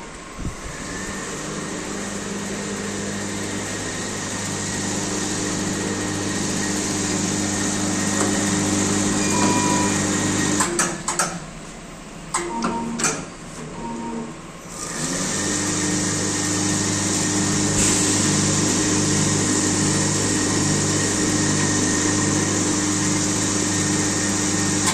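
An automatic machine's electric motor running with a steady hum. It stops about 11 seconds in, with a few clicks and knocks, and starts again about 15 seconds in.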